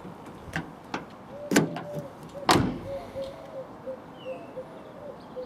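Ford Ka door handle being worked and the door latch clacking: a few light clicks, then two loud clacks about a second apart in the middle, the sign that the new handle now releases the latch.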